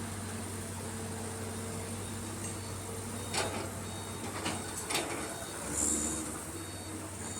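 Hydraulic excavator diesel engines running steadily while digging and loading soil into a dump truck, with three short metal clanks a little past the middle and a brief high hiss near the end.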